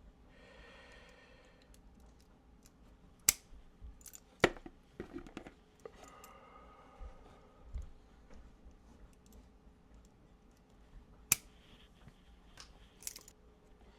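Wire strippers snapping as insulation is stripped from speaker wires ahead of crimping: three sharp snaps, about three, four and a half, and eleven seconds in, among softer clicks of tool handling.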